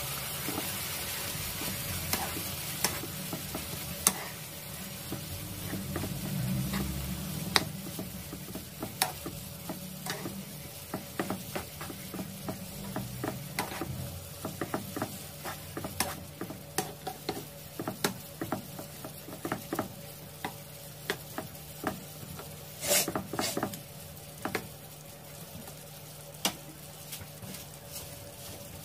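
Beef strips and sliced bell peppers sizzling in a frying pan while a wooden spatula stirs them, knocking and scraping against the pan again and again. The sizzle is strongest near the start, and there is a short flurry of louder knocks about three quarters of the way through.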